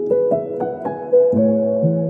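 Gentle background piano music: a short rising run of single notes, then a low chord about a second and a half in.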